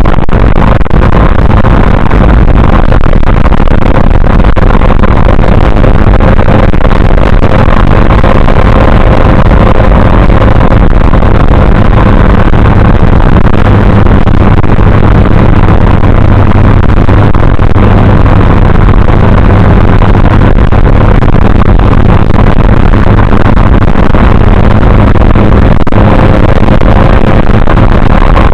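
Triumph TR3A's four-cylinder engine running steadily while the car drives, overloading the dash cam's microphone so that the sound is distorted and stays at full level throughout.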